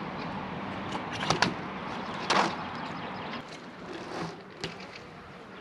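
BMX bike riding on wet concrete, tyres hissing, with a few sharp knocks about a second in and a louder thud about two and a half seconds in as the wheels hit and come off a low box.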